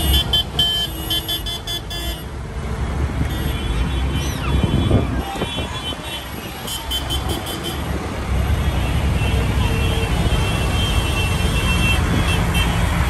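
Diesel engines of farm tractors running as they drive slowly past in a line, a steady low rumble. Bursts of high pulsing tones come and go, in the first two seconds and again around seven seconds in.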